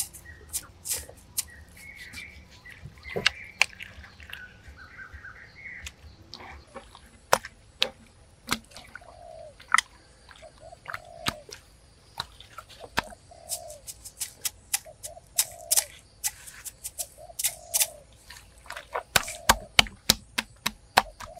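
Forest birds calling: chirping warbles in the first few seconds, then a dove cooing in short repeated notes. Sharp clicks and knocks run throughout and are the loudest sounds, with a faint steady high whine from about a third of the way in.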